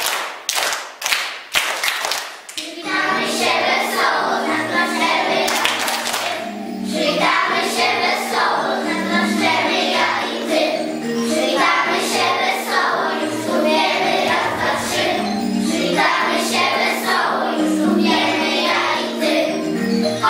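Children clapping their hands in time, about two claps a second, then a group of young children singing a song together over backing music from about two and a half seconds in.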